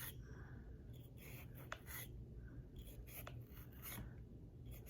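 Bore brush scrubbing in and out of the cylinder chambers of a stainless S&W 686 Plus revolver: faint, irregular rasping strokes, roughly two a second.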